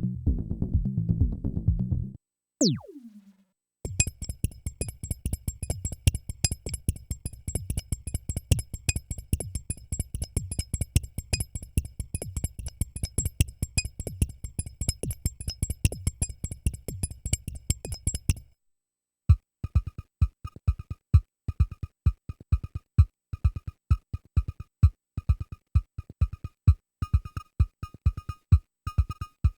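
Dave Smith Evolver synthesizer playing sequenced drum-machine-style patches. A bass pattern stops about two seconds in and a single falling zap sweeps down. Then a fast, busy rhythm of low thumps and high ringing tones runs until it cuts off about two-thirds through, and after a short gap a sparser beat with a repeating high blip takes over.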